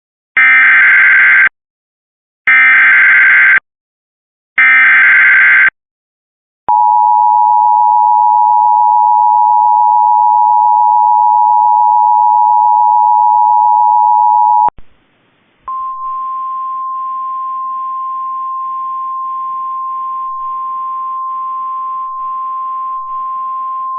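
Emergency Alert System tones: three one-second bursts of the warbling SAME digital header, then the eight-second two-tone EAS attention signal. After a one-second gap comes a single steady alert tone with faint hiss behind it, typical of the NOAA Weather Radio 1050 Hz warning tone relayed in the alert.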